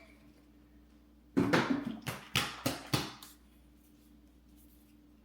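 Protein shake poured from a bottle into a plastic container: a quick run of about six glugs and splashes lasting under two seconds.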